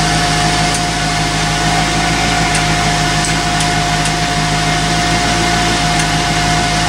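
Electric bilge blower in a boat's engine compartment running steadily: an even whirring hiss with one constant held tone and a low hum underneath.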